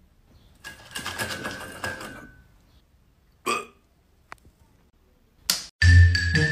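A dog eating from a steel bowl: about two seconds of clattering and crunching, with the bowl ringing and fading. A brief pitched sound and a single click follow. Near the end, music with marimba-like mallet percussion starts and becomes the loudest sound.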